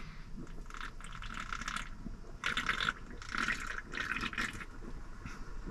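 A person gulping beer from a can, a steady run of swallows with the beer sloshing in the can.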